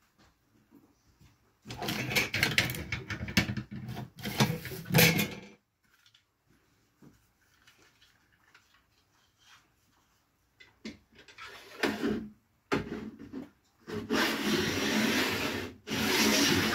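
Rubbing and scraping of packaging and parts being handled while a table saw is unboxed, coming in spells of a few seconds with quiet gaps between them.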